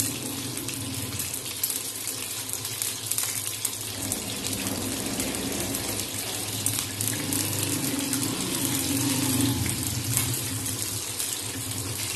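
Masala-battered fish pieces frying in hot oil in a kadai: a steady sizzle with fine crackling.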